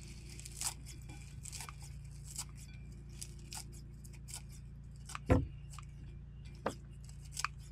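Light clicks and taps of kitchen utensils and dishes being handled while food is served onto plates, with one sharper knock about five seconds in, over a steady low hum.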